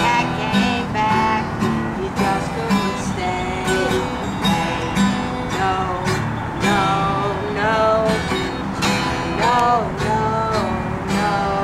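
Acoustic guitar strummed in a steady rhythm while a woman sings the melody.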